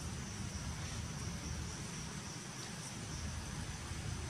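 Steady high-pitched insect chirring, one unbroken tone, over a low rumble.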